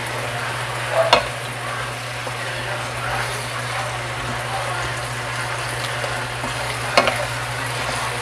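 Chicken, okra and saluyot (jute leaves) sizzling in a nonstick wok as they are stirred with a wooden spatula, with two sharper knocks of the spatula against the pan, one about a second in and one near the end. A steady low hum runs underneath.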